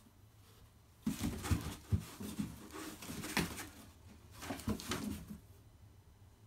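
Kittens scrambling in and against a cardboard box: scratching, rustling and knocks on cardboard in two spells, starting about a second in and dying away about five and a half seconds in.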